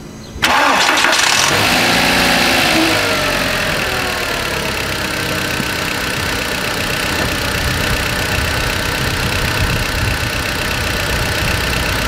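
VW Beetle 1.8-litre turbo four-cylinder engine starting about half a second in; the revs flare and drop back, then it idles steadily. The idle is smooth: the vacuum leak from the cracked brake booster line has been cured with a hose clamp and epoxy.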